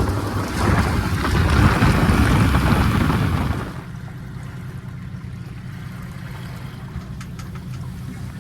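Boat motor running with a steady low hum. For the first three and a half seconds or so a loud rush of wind and water lies over it, then drops away suddenly, leaving the motor alone.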